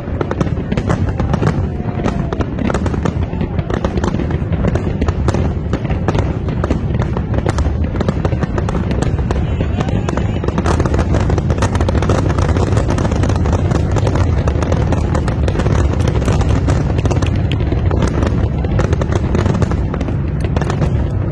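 Aerial fireworks going off in a rapid, continuous barrage of bangs and crackles, with no pause between shots.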